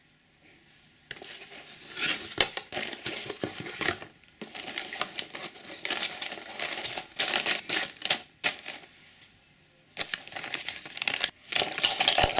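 Handling noise on a workbench: dense clicking, rattling and scraping in several bursts of one to three seconds each, with short quiet gaps between them.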